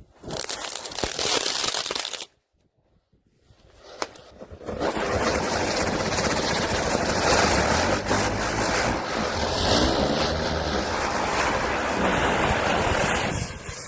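Firecrackers burning with a loud hissing spray of sparks: a burst of hiss that cuts off suddenly about two seconds in, then after a short pause a longer, steady hiss that lasts most of the rest.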